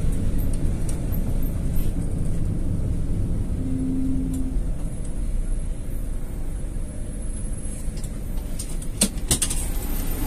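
Bus engine running steadily at low speed, heard from inside the driver's cab as a low rumble. A brief beep-like tone sounds about four seconds in, and a few sharp clicks come near the end.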